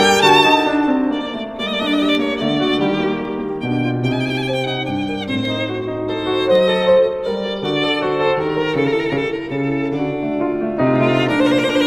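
Background music: a violin melody with vibrato over a lower accompaniment that moves in steps.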